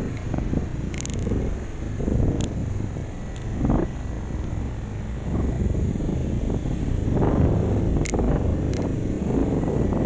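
Engine and road rumble of a vehicle driving up a paved mountain road, heard from on board, with a few sharp ticks or rattles.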